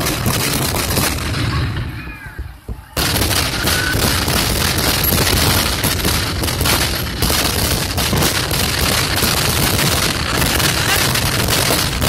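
Aerial fireworks bursting in a rapid, continuous barrage of booms and crackle, with a short lull about two to three seconds in before the barrage starts again suddenly.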